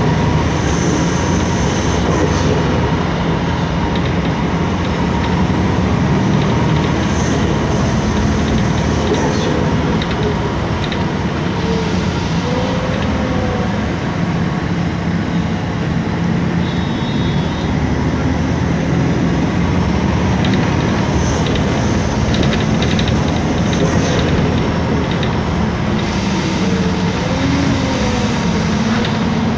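Cabin sound of a MAN Lion's City G articulated city bus underway, its rear-mounted MAN E2876 CNG engine running under a steady low rumble mixed with road and body noise. A few brief hisses come through now and then.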